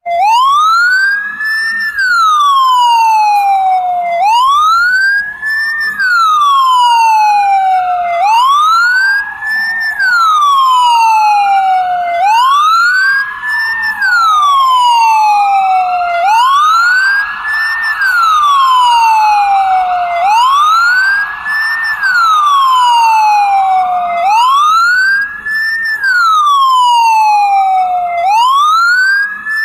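Ambulance siren on a wail: one loud tone rises for about two seconds and falls for about two, repeating every four seconds. A fainter second wailing tone overlaps it, out of step.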